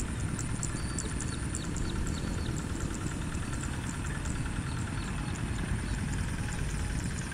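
Quick two-wheel walking tractor's single-cylinder diesel engine running steadily with a low, even rumble.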